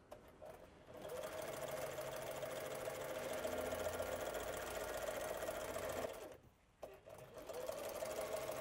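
Sailrite UltraFeed walking-foot sewing machine, run by a Workhorse servo motor, stitching a hem through HDPE shade cloth at a steady speed. About six seconds in it stops for a moment, then starts sewing again.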